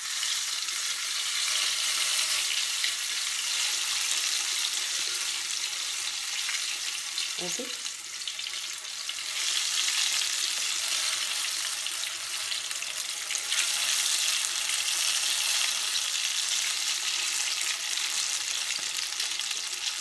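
Cauliflower pakoras deep-frying in very hot oil in a kadhai, a steady sizzle of bubbling oil during their second fry. The sizzling grows louder about ten seconds in.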